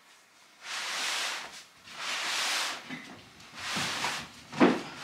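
A large shag rug being lifted, swung round and dragged over a parquet floor: three long swishing rustles, then a short, louder thud near the end.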